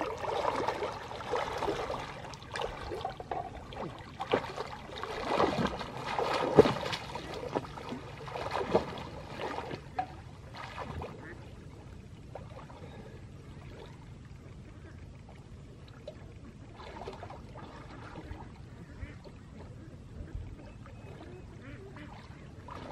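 Water sloshing and splashing as a person wades waist-deep through a pond, pushing a floating metal cooking pot. The splashing comes in irregular surges for about ten seconds, then fades to a faint lapping.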